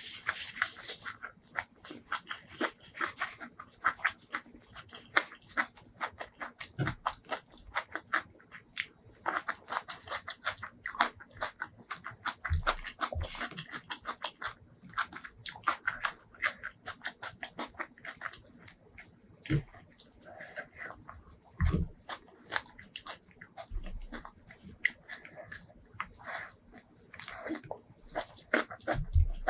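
Close-miked eating: a person chewing and lip-smacking mouthfuls of rice eaten by hand, a rapid, irregular run of wet mouth clicks with a few soft low thumps here and there.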